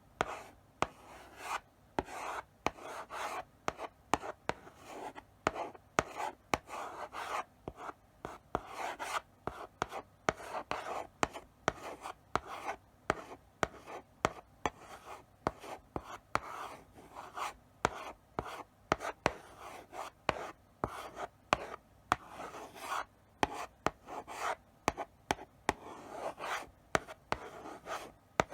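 Chalk writing slowly on a blackboard: a steady run of short scratchy strokes with sharp taps as the chalk meets the board.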